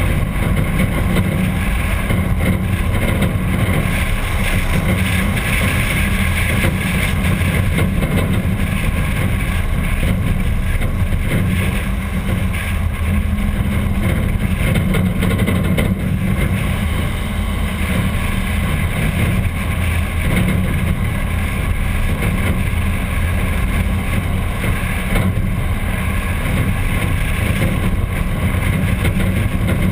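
Steady low rumble of a 1951 Packard's straight-eight engine and road noise, mixed with wind on the microphone.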